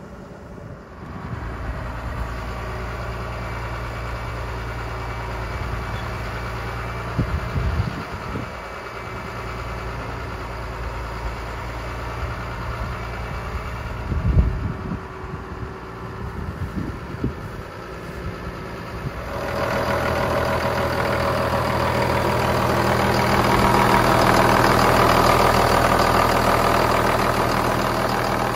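Huddig 1260C backhoe loader's diesel engine idling steadily, with a few brief low thumps along the way. About two-thirds of the way in it gets louder and fuller, heard close up at the open engine bay.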